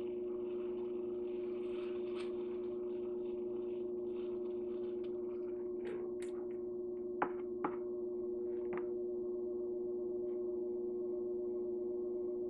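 Electric pottery wheel humming steadily as it spins, with a trimming tool scraping lightly against the clay at the base of a bowl in the first half. Two sharp clicks come a little after seven seconds.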